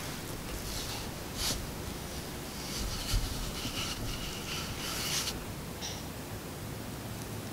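Wooden rolling pin rolling over scone dough on a floured wooden board: soft rubbing and scraping strokes, with a light knock about three seconds in.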